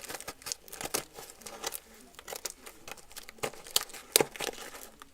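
Scissors and hands working a small cardboard box open: irregular snips, scrapes and tearing, crinkling crackles of tape and cardboard as it is forced open.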